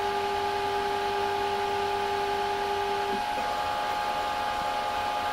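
Hitachi U-2000 spectrophotometer running mid-scan in the ultraviolet range: a steady mechanical hum made of several whining tones. A lower whine cuts off about three seconds in, and a higher tone takes over shortly after.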